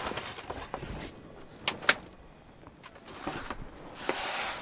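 Rustling of cardboard, paper packing and a nylon camcorder bag as the bag is lifted out of a box and set on a table, with two sharp clicks a little before two seconds in and a scraping rustle near the end.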